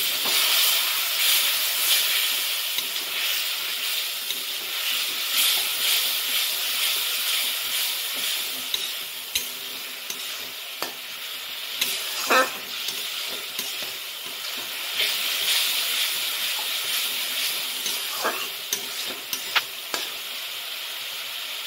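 Onion and spice masala sizzling in a wok while it is stirred and scraped with a steel spatula, the paste frying down after a splash of water was added. The sizzle swells and eases, with a few sharp clinks of the spatula against the pan in the second half.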